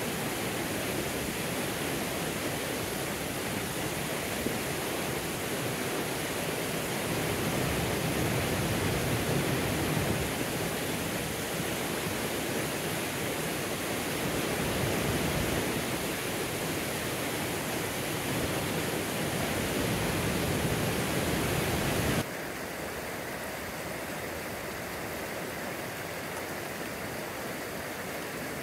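Waterfall and rocky creek rapids rushing in a steady wash of water noise. About twenty seconds in, it cuts suddenly to a quieter, softer rush of a shallow creek running over stones.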